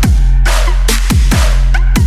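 Electronic dance music with a heavy beat: a held deep bass under repeated falling-pitch kick-drum hits and crashing snare strokes.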